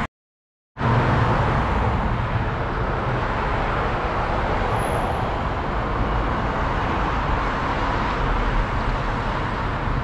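Steady city street traffic noise, an even hum of passing cars, starting right after a brief silence near the start.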